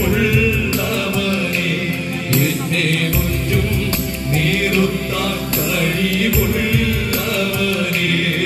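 Two male voices singing a devotional song into microphones, amplified through a PA, over sustained instrumental backing with a bass line.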